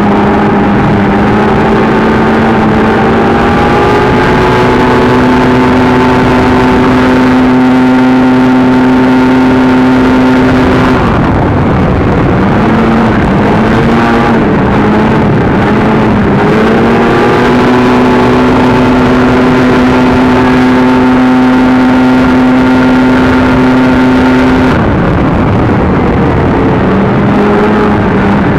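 Polaris XC 600 snowmobile's two-stroke twin engine at full throttle, heard from the rider's helmet. It holds a steady high pitch on the straights, and its pitch drops and wavers through a corner a little before the middle and again near the end.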